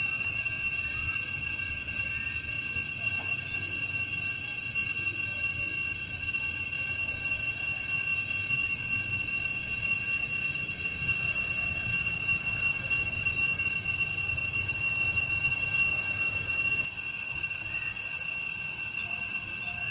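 A steady high-pitched whine with a fainter, higher tone above it runs unbroken over a low rumble.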